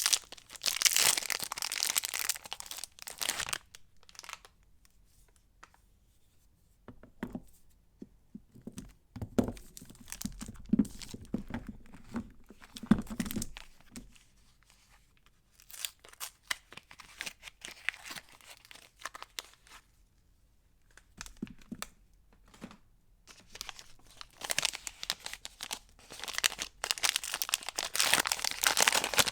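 Soap wrappers being torn open and crinkled by hand, in bursts of crisp rustling and tearing. The loudest bursts come at the start and near the end. In the middle there are quieter knocks and handling sounds.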